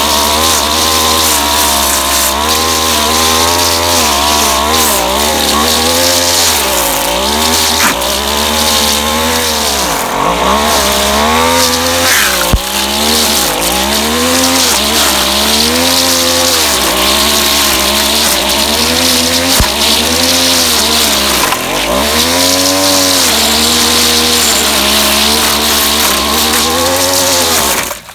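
Two-stroke string trimmer engine revving up and down again and again as the line head cuts, with a couple of sharp ticks from the line striking something.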